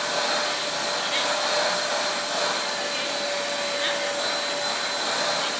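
Vacuum cleaner running steadily, a rush of air with a steady whine on top, as it is used to suck loose shed hair from a dog's coat.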